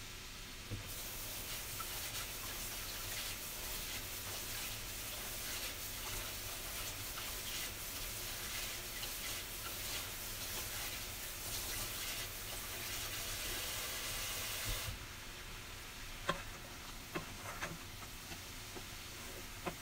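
Water at a rolling boil around broccoli and cauliflower florets in a pan: a steady bubbling hiss that stops suddenly about 15 seconds in. Then a wooden spatula stirring the florets knocks against the pan a few times.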